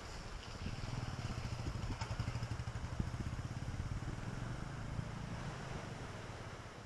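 A small engine running past, its low hum coming up about a second in and fading near the end, over wind and lake waves.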